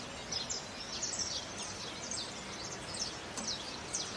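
Many small animals chirping: short, high chirps, each falling in pitch, several a second and overlapping, over a steady background hiss.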